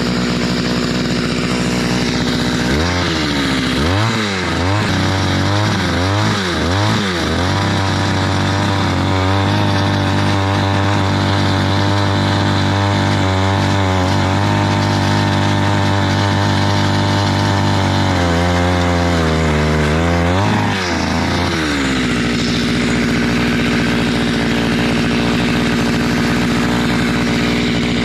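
Two-stroke engine of a gas-powered ice auger idling, then revved up and down several times, held at high revs for about ten seconds while boring a hole through the lake ice, revved again briefly and let drop back to a steady idle about three quarters of the way through.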